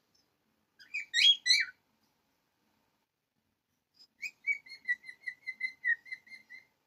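High whistle-like notes over dead silence: a quick cluster of chirps about a second in, then a run of short notes at about four a second, near one pitch, from about four seconds in.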